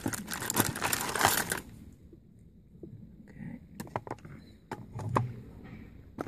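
Small craft supplies, wire spools, plastic packets and tools, rattling and clicking against each other in a plastic tool case tray as a hand rummages through them. The sound is busiest in the first second and a half, then thins to a few scattered clicks.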